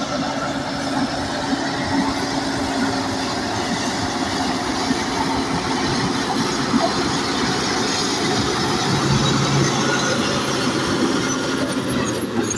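Crawler bulldozer working under load, its diesel engine running steadily at high throttle with the grinding of the tracks and blade in the soil.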